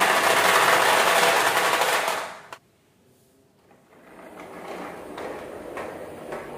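Many marbles rattling down wavy wooden and plastic marble-run tracks, a dense rapid clatter that cuts off suddenly about two and a half seconds in. After a second of quiet comes fainter scraping and rattling as a plastic toy dump truck loaded with marbles is handled.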